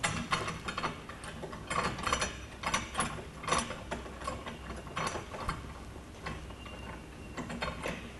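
A metal G-clamp being screwed tight onto a plywood board at a bench edge, with irregular metal clicks and rattles as the clamp is turned, several a second.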